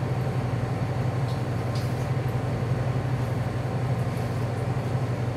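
Steady low hum of running kitchen machinery, with no change in pitch or level.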